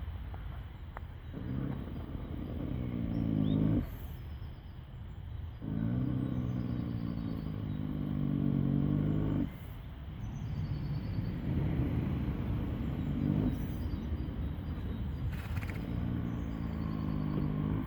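A horse lying asleep and snoring: long, low, pitched snores with each breath, four of them about every four to five seconds.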